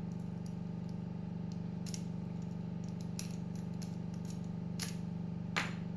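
Light, irregular metallic clicks and scrapes of a lock pick and tension tool working in the keyway of an Abus disc padlock, with a longer scrape about five and a half seconds in, over a steady low hum.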